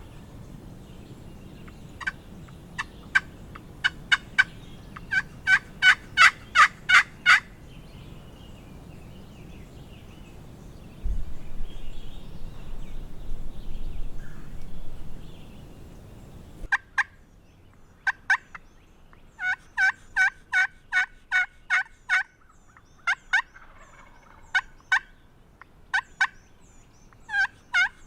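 Wild turkey yelping: several runs of short, evenly spaced notes, about three or four a second, the sound of turkey calling in spring. About eleven seconds in, a few seconds of loud low rushing noise covers the background.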